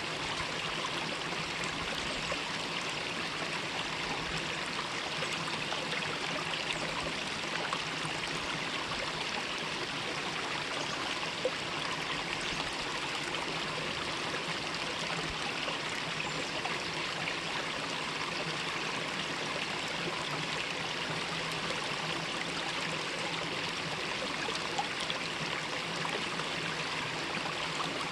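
Mountain valley stream running steadily over rocks, a continuous even rush of water with fine trickling.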